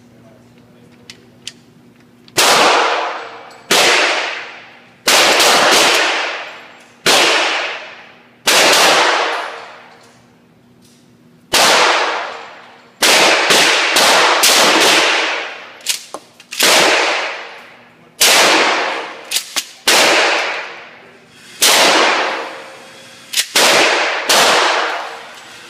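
Pump-action shotgun fired over and over, about a dozen loud shots spaced a second or two apart, each ringing out in the echo of an indoor range. A few smaller, quicker cracks fall in between.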